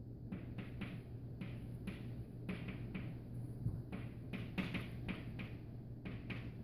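Chalk writing on a blackboard: quick, irregular taps and short scrapes of the chalk as a line of words is written, over a steady low hum.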